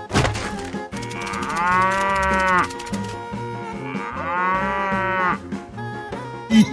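A cow mooing twice, each moo long and drawn out, rising then falling in pitch, over background music.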